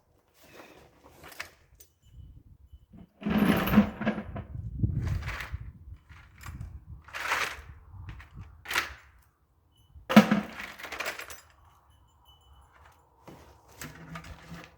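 Knocks, scrapes and a longer scuffing rustle about three seconds in, then a few shorter sharp knocks: a person getting down and shifting about to lie under a lawn tractor, handling things as he goes.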